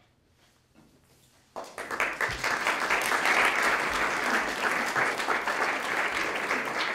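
Audience applauding in a room. The clapping starts abruptly after about a second and a half of quiet and goes on steadily.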